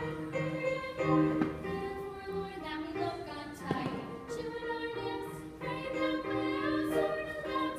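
A company of voices singing a show tune together with accompaniment, several parts overlapping.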